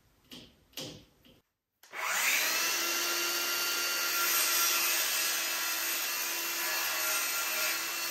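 Electric power tool running steadily with a constant whine for about seven seconds, after two light knocks in the first second.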